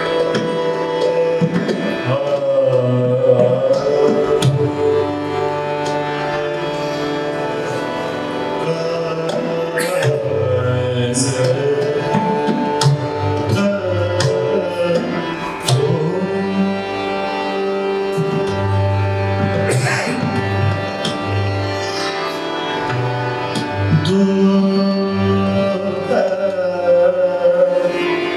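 Hindustani classical vocal music in Raag Abhogi: a male voice sings gliding, ornamented phrases over a steady drone, with tabla playing a steady rhythmic accompaniment. The voice is strongest near the start and toward the end.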